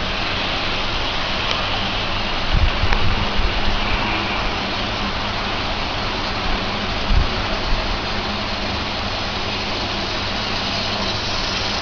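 Electric model train running on its track: Life-Like diesel locomotives pulling a freight consist, heard as a steady rushing hiss with a low hum. A few low knocks come about 3 s and 7 s in.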